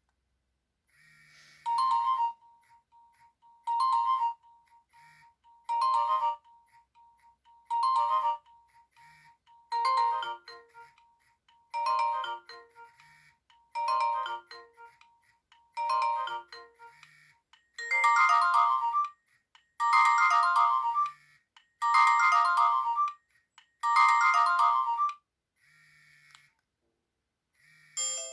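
Nokia 1600 mobile phone playing one of its built-in ringtones: a short electronic melodic phrase repeated about every two seconds, a dozen times, with the last four repeats fuller and louder.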